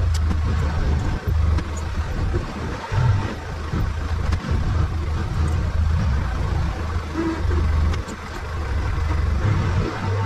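Arctic Cat side-by-side engine running, a steady low rumble whose level rises and falls.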